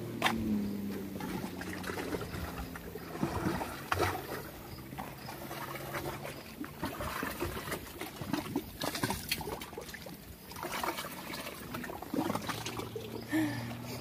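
Lake water lapping and sloshing against the edge of a limestone shore ledge, in irregular small splashes. A steady low hum runs underneath in the first half and comes back near the end.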